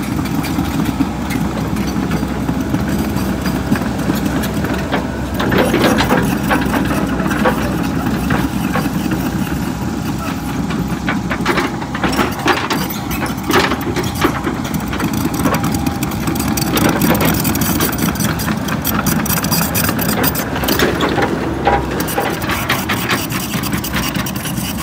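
Compact excavator's diesel engine running steadily while the bucket works loose dirt and gravel, with scattered knocks and scrapes over the engine.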